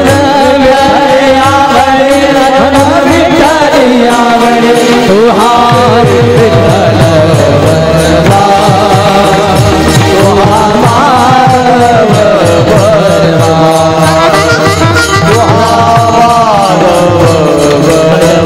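Varkari devotional kirtan music: a young male voice sings long melodic lines that slide up and down in pitch, accompanied by small hand cymbals (tal) and a steady drum rhythm.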